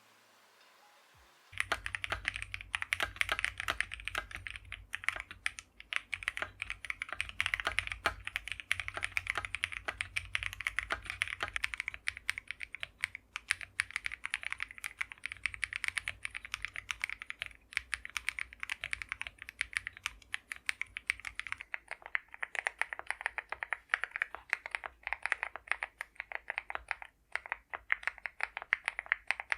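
Continuous fast typing on an Akko MOD006 custom mechanical keyboard fitted with lubed Akko CS Crystal Silver linear switches and PBT cherry-profile keycaps. The typing starts after about a second and a half of quiet, and the low, deep part of the sound thins out about two-thirds of the way through.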